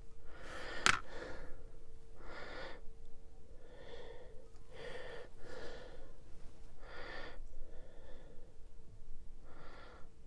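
A person breathing close to the microphone, about eight short breaths at uneven intervals, over a faint steady hum. There is a sharp click about a second in.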